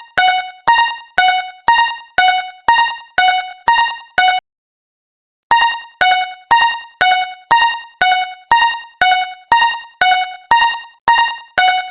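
Japanese railroad crossing (fumikiri) alarm bell ringing in a fast repeating two-tone pattern, alternating high and low strikes nearly three times a second. It cuts out for about a second midway, then starts again.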